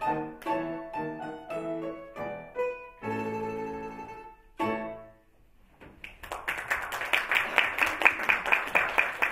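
A domra and an August Förster grand piano play the closing bars of a piece, ending on a final chord about four and a half seconds in. After a short pause the audience breaks into applause.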